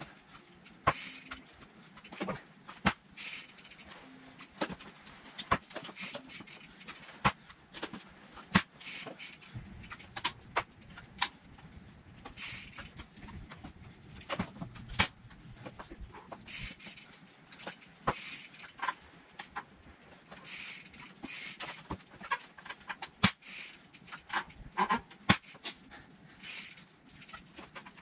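Mountain bike rocking in a homemade wooden manual-machine trainer: irregular knocks and clicks from the tyres and bike against the wooden frame as the rider pulls up onto the rear wheel and drops back, with short bursts of hiss in between.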